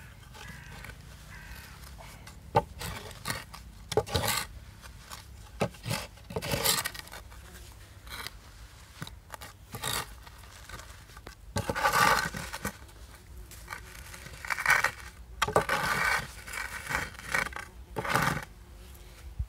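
Wooden board screed scraping over sand and along the tops of concrete kerbs in irregular strokes, levelling the sand bed to height for paving slabs.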